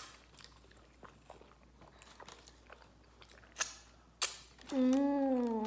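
Close-miked mouth sounds of someone eating a sandwich: soft wet chewing clicks, two sharper crunchy bites about three and a half and four seconds in, then a hummed "mmm" near the end.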